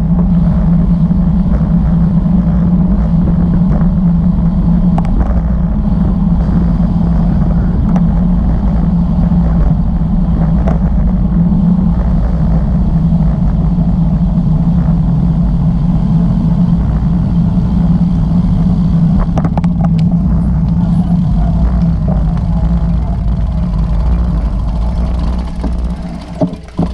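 Steady rush of wind on a bicycle-mounted action camera's microphone, with road-bike tyres humming on asphalt at speed. It eases off and breaks up near the end as the bike slows.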